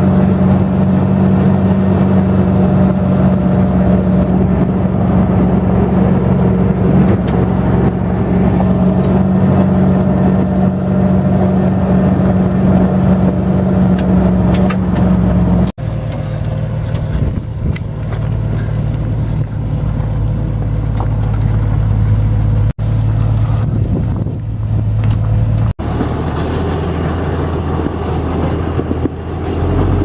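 International farm tractor engine running steadily under load while towing a wagon full of firewood logs. Its drone changes abruptly in pitch and tone about halfway through.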